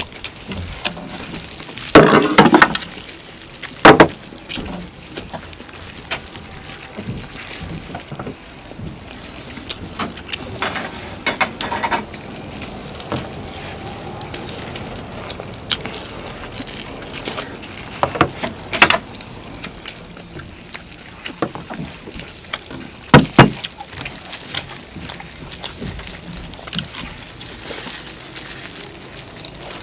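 People eating roast duck: chewing and tearing, with scattered small clicks and a few sharp, loud knocks or clatters spread through.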